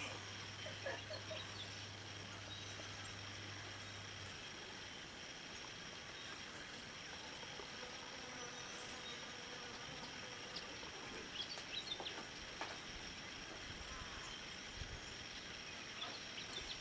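Outdoor rural ambience dominated by a steady, high-pitched insect drone, with a few brief faint sounds about a second in, around the middle and near the end.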